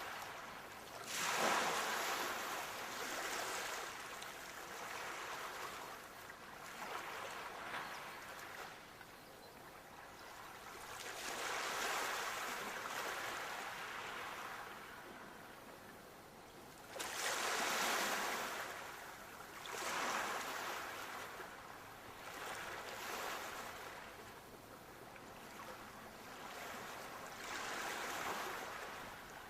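Sea waves breaking in repeated swells of surf that rise and fade away. The loudest breaks come about a second in and again about seventeen seconds in.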